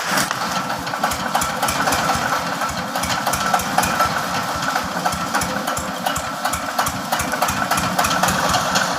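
Engine of a pickup truck rigged up as a wood saw, running steadily with a fast, even pulsing and a constant whine over it.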